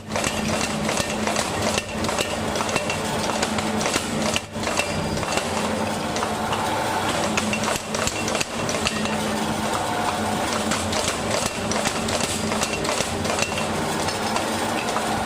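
Mechanical power hammer pounding an axe head in rapid, continuous blows, over a steady motor hum.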